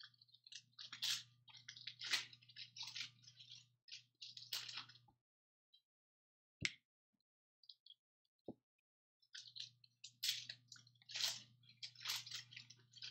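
Trading-card pack wrapper crinkling as it is torn open and the cards are slid out, in two spells of a few seconds each with a low hum under them, and a couple of single clicks in the pause between.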